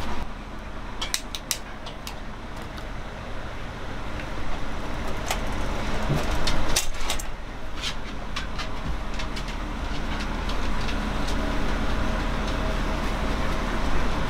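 Steady low rumbling background noise, with a few sharp clicks and knocks of metal camp cookware being handled.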